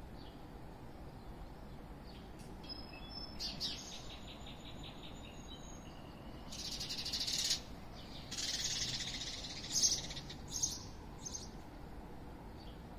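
Small songbirds calling in short bursts: a high, thin twittering about three seconds in, then louder buzzy trills around seven and nine seconds, over a steady low background hum.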